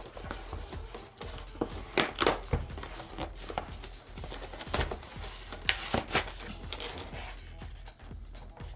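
A hand-tool set's packaging being opened and handled: irregular rustling, scraping and sharp clicks, loudest about two seconds in and again around five and six seconds.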